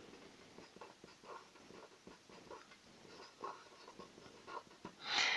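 Felt-tip marker writing on paper: faint, short scratching strokes, with a brief louder rush just before the end.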